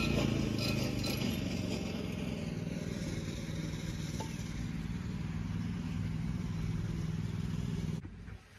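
A motor vehicle's engine running with a steady, low, even hum, coming just after a loud pass. It cuts off abruptly near the end.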